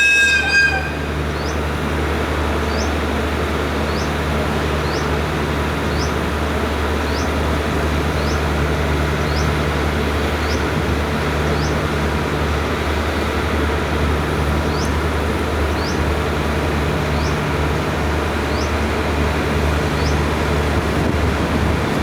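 A train horn blast ends under a second in. It gives way to a diesel freight locomotive's engine running steadily with a low hum. A faint, short high chirp repeats about every 0.7 seconds over it.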